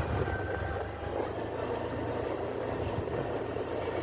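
Steady wind rush over the microphone of a moving motor scooter, with the scooter's engine running under it.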